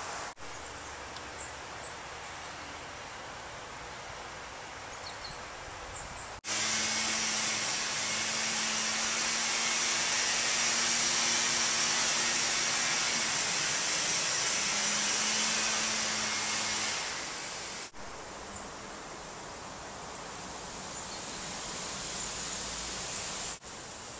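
Outdoor ambience: a steady hiss with a few faint, high bird chirps. In the middle stretch a louder rushing noise with a low steady hum comes in abruptly and fades away about ten seconds later, its source unclear.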